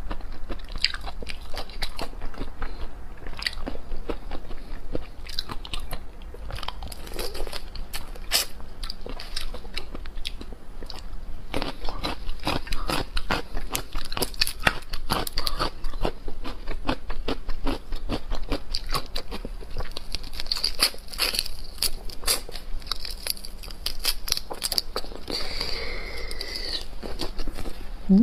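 Close-miked eating of soy-marinated raw prawns: wet chewing and sucking, with many small clicks and crackles as the shells are peeled and bitten.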